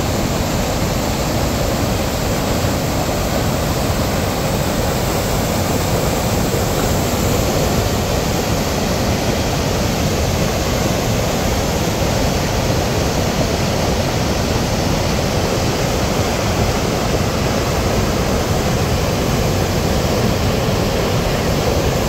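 Steady rushing of a wide river waterfall, white water pouring over broad stepped rock ledges, loud and unchanging throughout.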